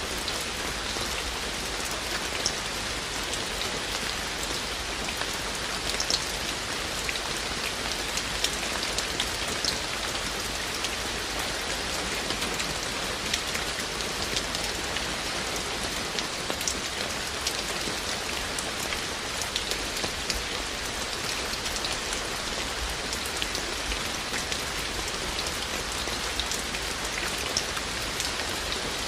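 Steady rain falling, an even hiss with many individual raindrops ticking sharply at irregular moments.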